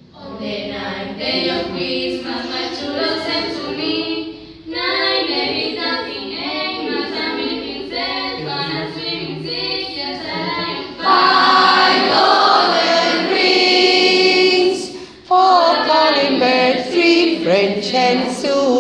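A class of schoolchildren singing together as a group. The singing gets louder about eleven seconds in and breaks off briefly a few seconds later before carrying on.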